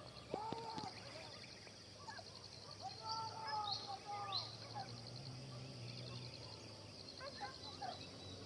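Faint hill-forest ambience: a steady pulsing insect trill with a few quick bird chirps. Distant drawn-out calls carry across the valley, briefly near the start and longer in the middle.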